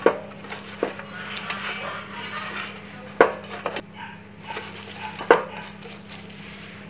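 Crushed lemongrass stalks rustling as they are spread by hand over a perforated stainless steel steamer tray, with a few sharp clicks and knocks against the metal pot, the loudest at the start, about three seconds in and about five seconds in.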